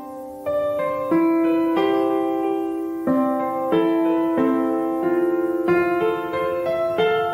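Background piano music: a gentle melody, with a new note or chord struck about every two-thirds of a second and left to ring.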